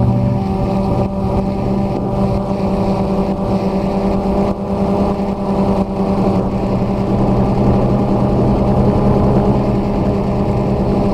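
DJI Phantom 2 quadcopter's brushless motors and propellers whirring steadily in flight, heard close up from the camera mounted on the drone. The pitch holds nearly constant, with only brief small dips.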